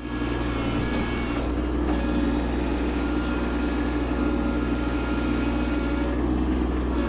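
Kubota B2601 compact tractor's three-cylinder diesel engine running steadily, a low, even drone that starts abruptly.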